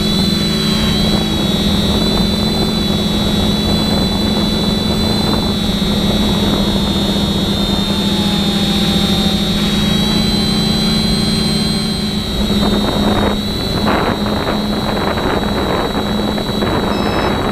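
Multirotor drone's electric motors and propellers running steadily in flight, a high whine over a lower hum, heard from the camera carried on the craft. A few rushing swells of noise come through near the end.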